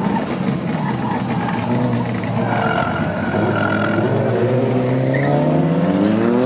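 Mitsubishi Lancer Evolution's turbocharged four-cylinder engine pulling hard through an autocross run, its note rising steadily in pitch over the second half, over a haze of tyre noise.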